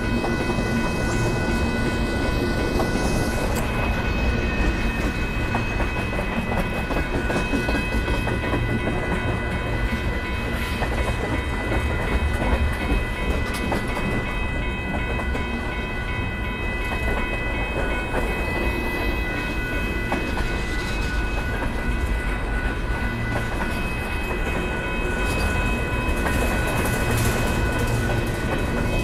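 Union Pacific manifest freight train's cars rolling past close by: a steady rumble of wheels on rail with scattered clicks, and a steady high-pitched ringing tone over it.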